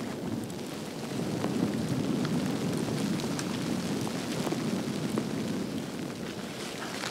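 Strong wind buffeting the microphone, an uneven low rumble that swells about a second in, with a few faint ticks scattered through it.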